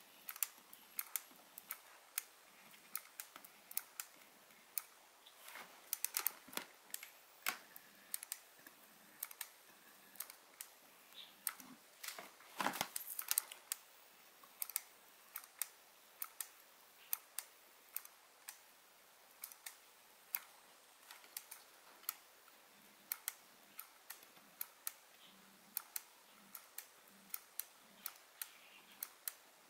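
Soldering on a circuit board: small, sharp, irregular clicks and ticks, about one or two a second, with a few close together about six seconds in and a denser run around twelve to thirteen seconds.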